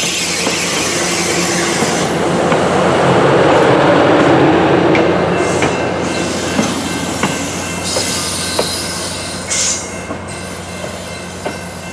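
Passenger train coaches rolling past close by, their steel wheels rumbling on the rails. The noise is loudest about four seconds in, then eases as the train moves away, with sharp clicks at rail joints and a thin high wheel squeal.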